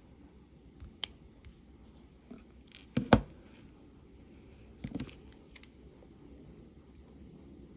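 Wire cutters snipping silver-plated copper craft wire, trimming off excess ends. A few short, sharp clicks: the loudest is a quick double snip about three seconds in, with another snip around five seconds.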